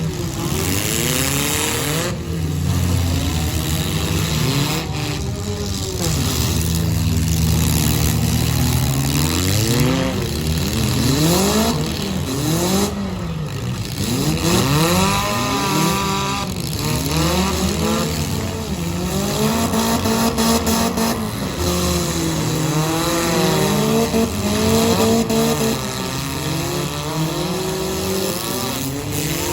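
Several four-cylinder demolition derby cars' engines revving at once. Their pitch climbs and falls again and again as the cars accelerate, brake and reverse, with some tyre squeal.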